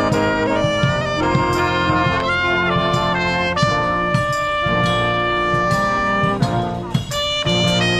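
Marching band playing live: trumpets, trombone and saxophones carrying the tune over sousaphone bass and a steady drum beat, with a brief break near the end before the next phrase.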